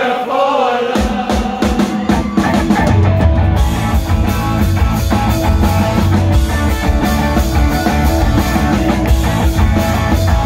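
Live rock band playing loudly: after a moment of singing, drums, bass and electric guitar come in together about a second in and carry on as a driving instrumental passage.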